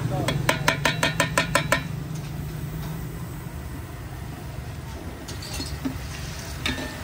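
A metal ladle knocked rapidly against a large aluminium cooking pot, about eight ringing clanks in under two seconds, as yogurt is tipped into the masala. It is followed by a metal spatula stirring the masala, which sizzles in the oil.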